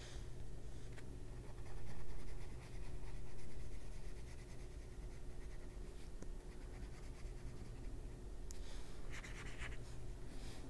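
Water brush pen stroked back and forth over watercolour-pencil shading on colouring-book paper, making a soft, repeated scratchy swishing. A louder flurry of strokes comes near the end, over a steady low hum.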